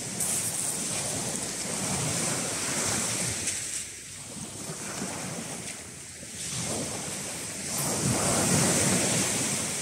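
Small sea waves breaking and washing over a shingle beach, swelling twice and falling back, with wind buffeting the microphone.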